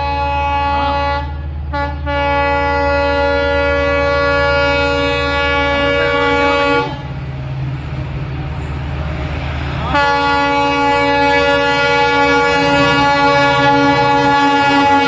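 Indian Railways locomotive horn sounding long, held blasts over the steady low rumble of the train. The first blast breaks off about a second in, a second lasts about five seconds, and after a pause of about three seconds a third is held to the end.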